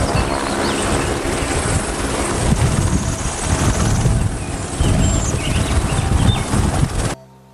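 Light helicopter running with its rotor turning: a steady turbine and rotor noise with a low, uneven beating. It cuts off abruptly just before the end.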